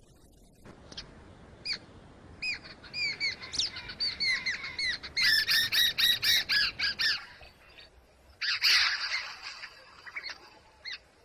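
Babbler giving its alarm call: short, harsh, repeated notes that quicken into a rapid run of about five a second, then a harsher chattering burst, warning other birds of a lurking predator.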